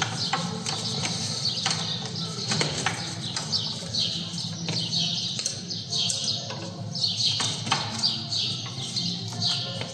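Small birds chirping in a rapid run of short falling chirps, over scattered clicks and knocks of hand work on the car's brake caliper.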